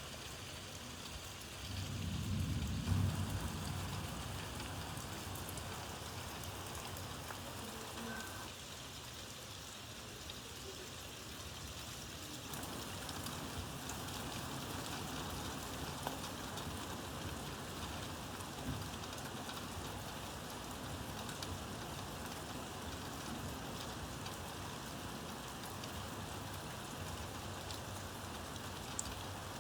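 Steady rain falling, with a brief low rumble about two seconds in.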